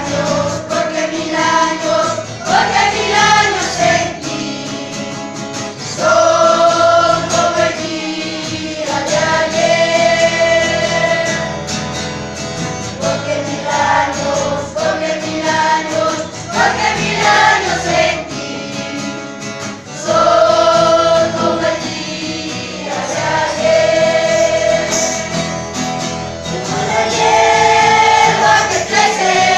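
A group of voices singing a Christian song over instrumental backing, in phrases of a few seconds with long held notes.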